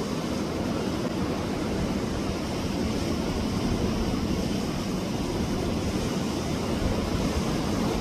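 Sea waves washing against rocks on a beach: a steady rushing of surf with no single breaker standing out.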